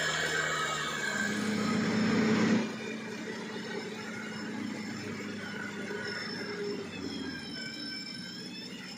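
Engine of an off-road 4x4 pickup truck running hard as it drives through deep mud. The sound swells, then drops abruptly about two and a half seconds in to a quieter, steady engine sound.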